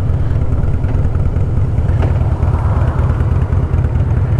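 Harley-Davidson Fat Boy's V-twin engine running steadily while the motorcycle cruises down the street, a deep, even engine sound with no revving.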